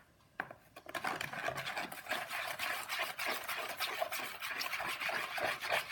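Borax-and-water solution being stirred with a utensil, which scrapes and clicks against the container in a fast continuous rasp that starts about a second in.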